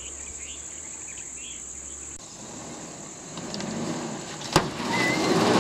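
A steady high insect drone with a few bird chirps. After a cut, a vehicle engine runs and grows louder, rising slightly in pitch, with a single sharp knock about four and a half seconds in.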